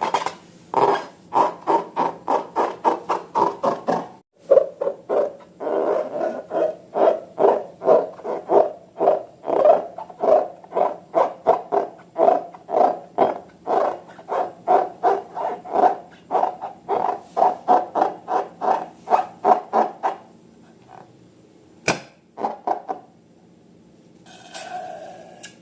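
Rubber balloon squeaking under rubbing hands in quick, even strokes, about two to three a second, stopping about twenty seconds in with a few scattered squeaks after.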